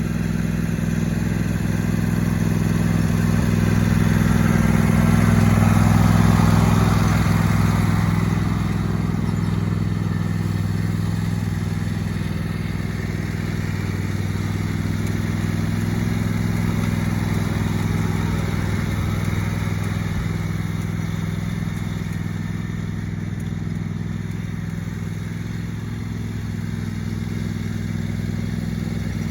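John Deere D140 lawn tractor engine running steadily while the tractor is driven, growing louder for a few seconds about five seconds in.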